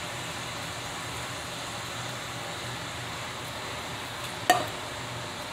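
Ground beef and sloppy joe sauce sizzling steadily in a skillet on a gas burner, with one sharp metal clink about four and a half seconds in.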